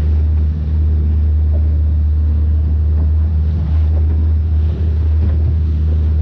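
Outboard motor of a small open skiff running steadily at trolling speed, a constant low drone, with wind on the microphone and water washing past the hull.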